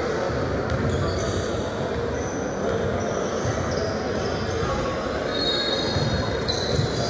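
Basketball game in a gym: the ball bouncing on the court, many short high sneaker squeaks, and a steady murmur of voices echoing in a large hall.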